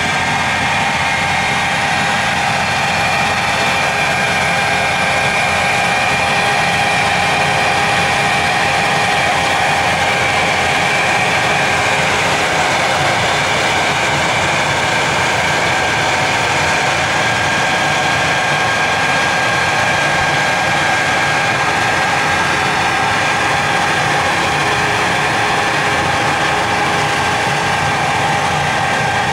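A machine running steadily, a loud even noise with a constant whine over it.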